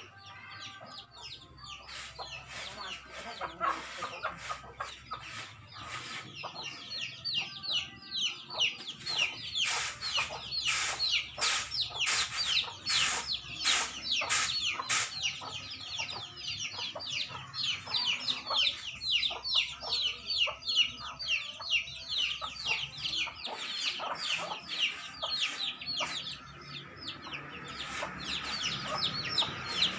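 A brood of chicks peeping rapidly and almost without pause, with chickens clucking. Through it, rice grains rattle on a winnowing tray as it is tossed, about twice a second, thickest about a third of the way through.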